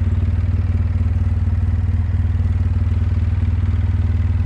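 ATV engine idling steadily at a low, even pitch.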